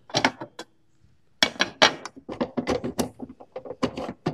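Clicking and clattering of parts being handled and fitted on a table saw during assembly: a short cluster of clicks, a pause of about a second, then a dense run of quick clicks and knocks.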